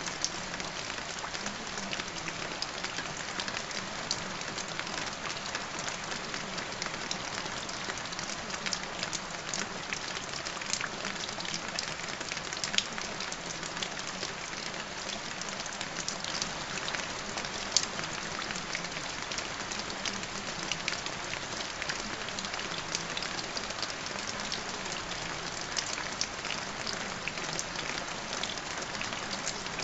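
Steady rain falling, a constant hiss full of small drop ticks, with a few louder drops standing out now and then.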